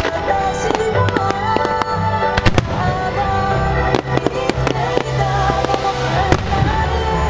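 Starmine fireworks barrage: shells bursting in sharp bangs, a couple a second at irregular intervals, over music playing throughout.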